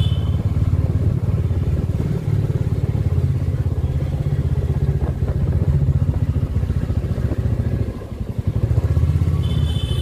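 A two-wheeler's engine running at low speed, a steady low rumble that dips briefly about eight seconds in. A short high-pitched beep sounds near the end.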